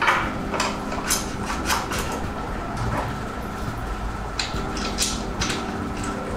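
Light metallic clicks and knocks of a stem, spacers and handlebar being handled and fitted onto a road bike's fork steerer, several sharp taps spaced about half a second to a second apart over a steady low room hum.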